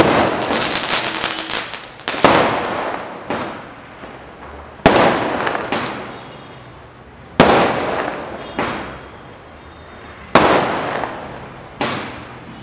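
Aerial fireworks bursting overhead: about seven sharp bangs, one every two or three seconds, each trailing off in a fading crackle.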